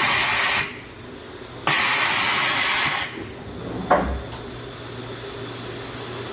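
Two blasts of compressed-air hiss from the Bridgeport TC3G vertical machining center, each a little over a second long. A sharp click follows about four seconds in, then the machine's steady low hum.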